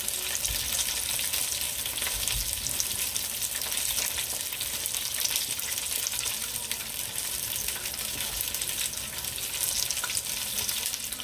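Flour-coated chicken wings frying in hot oil: a steady sizzle with fine crackling.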